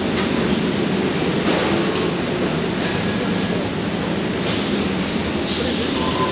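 Steady loud din of factory machinery in a steel fabrication shop, where a robotic press brake cell is working, with a few faint knocks and a hiss starting near the end.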